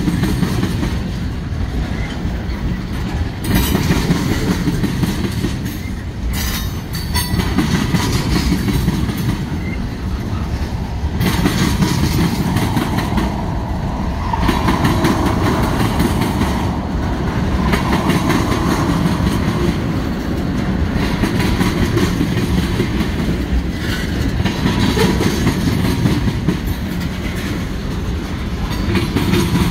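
Long freight train's cars rolling past close by: a steady rumble of steel wheels on rail that swells and dips every few seconds as each car goes by.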